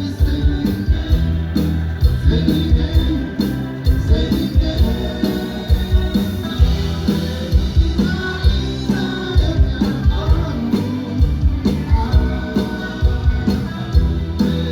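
Live band playing a song with a steady drum-kit beat, recorded from the room.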